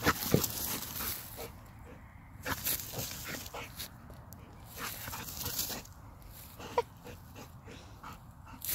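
A dog chewing and nosing in grass, with irregular crunches and rustles, and one short high whine a little before the end.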